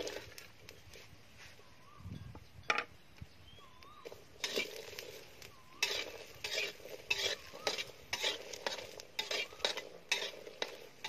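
Food being stirred and scraped in a sizzling frying pan. A single knock comes early, and from about four seconds in the utensil clinks against the pan two or three times a second.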